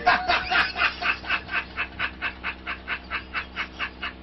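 A man laughing in a long, rapid, even run of 'ha' bursts, about five a second.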